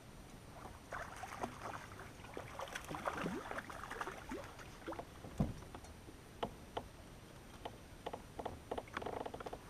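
Irregular water splashes, clicks and knocks at a fishing kayak as a hooked largemouth bass is brought alongside and landed.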